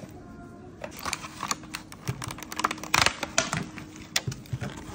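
Clear plastic blister packaging being handled and pulled apart: irregular crinkling and sharp clicks that start about a second in, the loudest near the middle.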